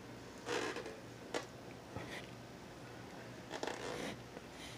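A few short, faint scraping strokes, spaced out at irregular intervals, like a hand tool or pen rasping across a surface.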